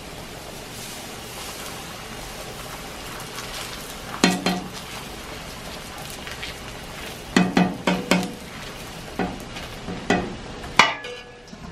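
Pancake batter sizzling as it is ladled and spread on a hot oiled flat-top griddle. From about four seconds in, a metal ladle clinks sharply against metal several times, the loudest near the end.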